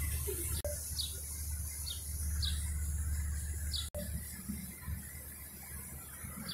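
A small bird chirping: a few short, high chirps about half a second to a second apart, over a steady low background hum.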